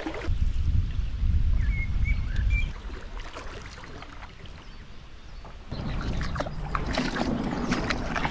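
Canoe on a river: a low rumble for the first few seconds, then a quieter stretch. About two-thirds of the way in, shallow water starts rushing and splashing past the canoe's hull, with knocks and scrapes as the canoe bottoms out on the riverbed.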